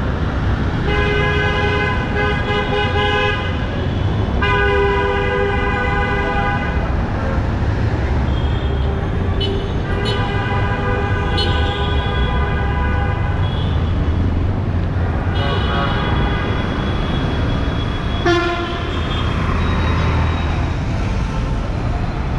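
Vehicle horns honking in busy street traffic: four long horn blasts of two to three seconds each over a steady traffic rumble, with a brief sharp knock near the end.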